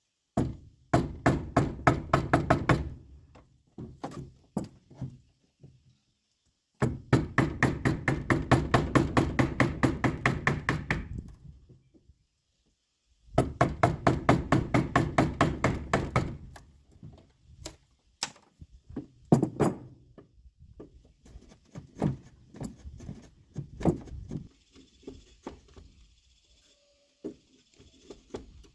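Rapid, even hammer blows on wood, about six to eight a second, in three long runs, followed by scattered single knocks.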